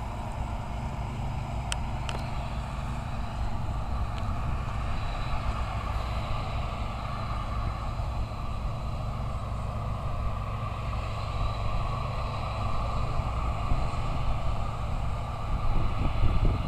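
Heavy farm machinery engine running steadily, with a deep drone, a brief click or two about two seconds in, and a short rise in level near the end.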